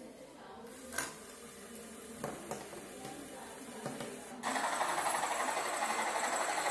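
Small LEGO WeDo 2.0 electric motor whirring steadily as it winds the model helicopter's chain line back up, starting about four and a half seconds in. A few light clicks come before it.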